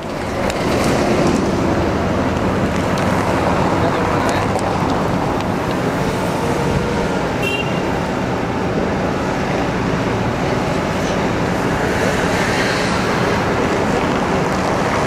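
Steady city traffic and the tour bus's own engine running, heard from an open-top upper deck, with a low hum underneath.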